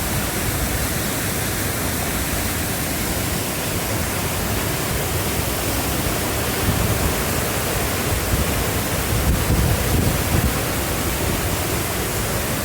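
Waterfall and rapids rushing in a steady, loud roar of water, swelling slightly a few times in the second half.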